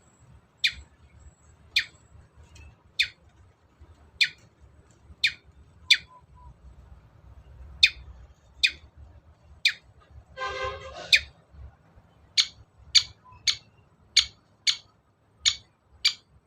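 Long-tailed shrike (cendet) calling: a series of short, sharp, high notes about one a second, broken a little past ten seconds in by a brief harsh rattling chatter.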